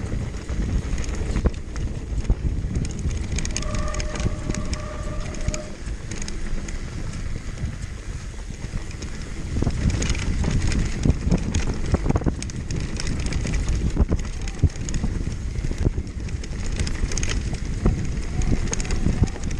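Downhill mountain bike ridden fast over rough ground: a continuous rumble of tyres and suspension with many sharp knocks and rattles from the chain and frame, and wind buffeting the microphone. A brief steady whine sounds for about two seconds around four seconds in.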